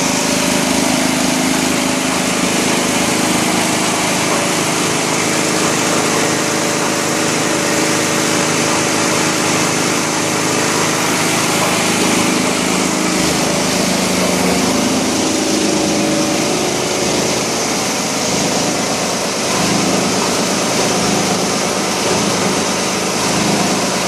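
Plastic crusher (granulator) driven by a 37 kW electric motor, running steadily: a loud, even machine din with a low hum under it.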